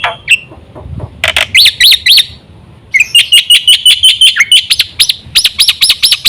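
Black-winged myna (jalak putih) calling loudly in runs of quick repeated notes: a string of arched chirps, then a fast chatter of even notes about a second later, then more arched chirps near the end.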